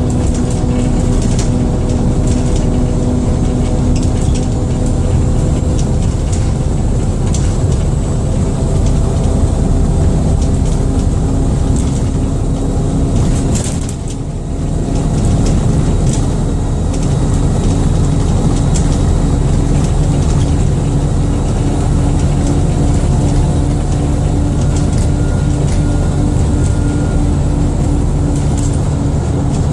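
Dennis Trident II / Alexander Dennis Enviro400 double-decker bus on the move, heard on board: the diesel engine running with steady tones that shift as it pulls, over a faint high whine, and a brief easing off about halfway through.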